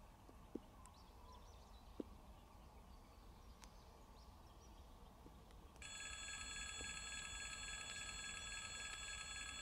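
Railroad crossing warning bell switching on about six seconds in and ringing steadily, signalling that a train is approaching. Before it there is only faint outdoor ambience with a couple of small knocks.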